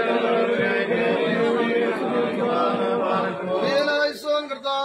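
A crowd of men chanting a prayer together in unison, on steady held notes. The chant thins out briefly near the end.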